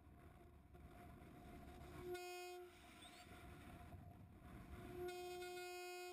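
A steady, buzzing electronic-sounding tone sounds twice: once for about half a second near the middle, and again for about a second near the end.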